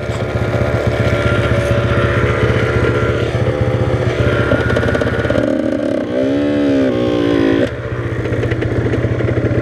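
Yamaha YZ85's two-stroke dirt bike engine running at idle, with one rev that rises and falls back between about five and a half and eight seconds in.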